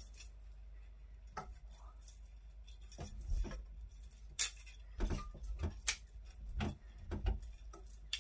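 Small bell on the end of a cat wand toy jingling in short, irregular shakes as the toy is swung and batted, with a few dull knocks among them.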